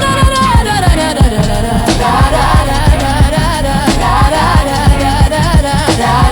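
Hip-hop/R&B-style song with a steady beat and a wordless sung melody line over it.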